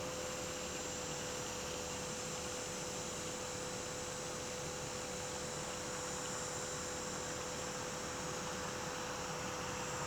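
Steady white-noise hiss for sleep, unchanging throughout, with a constant hum tone running underneath.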